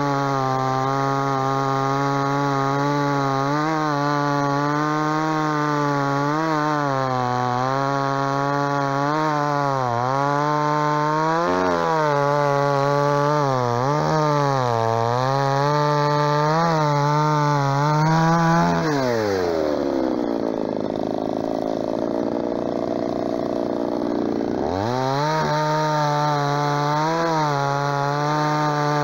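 Cheap 45 cc two-stroke chainsaw (MTX 4540) with a full-chisel chain cutting through a birch log at full throttle, its pitch dipping and recovering as the chain loads in the wood. About two-thirds of the way in the throttle is released and the engine drops to idle for several seconds, then revs back up to full speed for the next cut.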